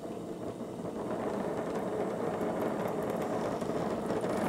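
Oxy-fuel torch with a brazing tip burning with a steady rushing hiss that grows gradually louder. The flame is unsteady, which the user blames on a bouncing flow meter on the oxygen side.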